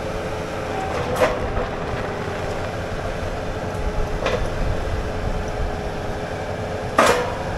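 Bobcat skid steer's diesel engine running steadily with a steady whine as the machine is driven on pallet forks. Sharp metal clanks ring out about a second in and around four seconds in, and the loudest comes near the end.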